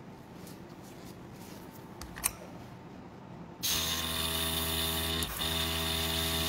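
A light click, then about three and a half seconds in a small airbrush compressor switches on suddenly and runs, a steady motor hum with a hiss of air from the airbrush. The air dips briefly once.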